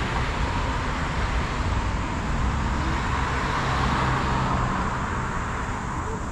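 Street traffic: cars going by with a steady hum of tyres and engines. One vehicle grows louder and passes close about three to four seconds in.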